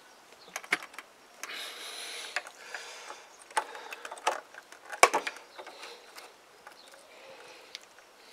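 Small metal clicks and knocks of hand tools as a screwdriver undoes the pivot bolt of a motorcycle clutch lever on the handlebar, with a short scraping rustle about two seconds in and the sharpest knock about five seconds in.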